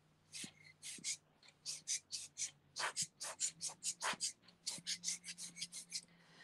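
A quick run of short, sharp hissing puffs from a hand-squeezed pump worked over wet alcohol ink, about four or five a second, sparse at first and then coming steadily.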